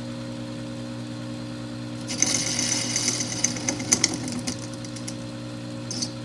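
Small bench lathe running with a steady motor hum while its cutting tool faces off the end of a Predator 314 pool cue shaft: from about two seconds in, a scratchy hiss with clicks for about three seconds as the tool cuts the shaft's end.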